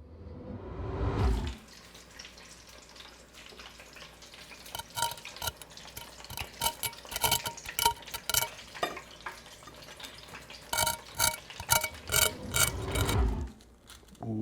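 Breaded chicken frying in a deep fryer: a faint hiss of hot oil with many quick crackles and light clinks, the crackling busiest in the middle and again near the end. Low rumbling handling noise about the first second and shortly before the end.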